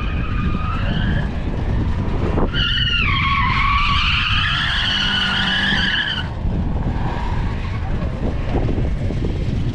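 1980s Toyota Corolla drifting: engine running hard under a low rumble, with tyres squealing, briefly near the start and then in one long squeal from about two and a half to six seconds in.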